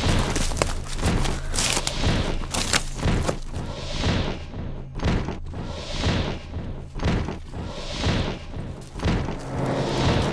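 Soundtrack music: a low held drone under many percussive hits, with swells of hiss about every two seconds in the second half.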